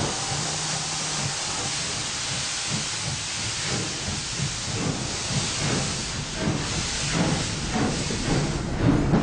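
Steam locomotive standing at the platform and blowing off steam with a loud, steady hiss. From about five seconds in, a run of irregular low knocks joins the hiss.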